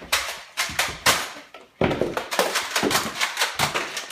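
A quick, uneven series of sharp clicks and thumps from a Nerf fight: running footsteps on a wooden floor and foam-dart blasters firing.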